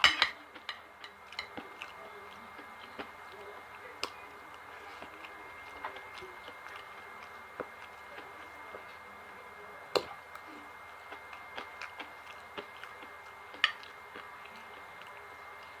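Close-up eating sounds: soft chewing and mouth smacks, with scattered small clicks of a utensil, a few of them sharper and louder.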